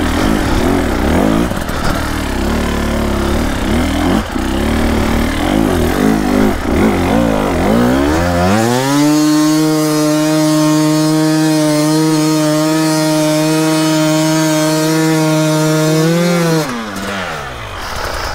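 Dirt bike engine revving hard while struggling through deep, wet mud: for about eight seconds the revs swing rapidly up and down. The engine then climbs to a steady high rev and holds there for several seconds before dropping away near the end.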